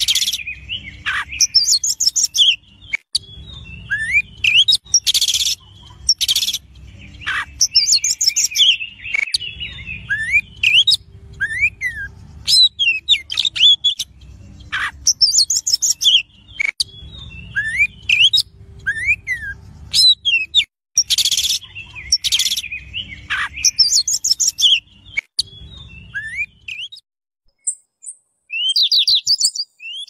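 Songbirds singing: phrase after phrase of quick high chirps and fast trills mixed with short rising and falling whistled notes, coming every second or two. The singing stops a few seconds before the end, and a different short chirping starts near the end.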